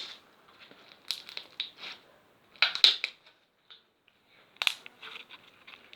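Slime being squeezed and pressed by hand, making irregular bursts of crackling and squelching with short quiet gaps between.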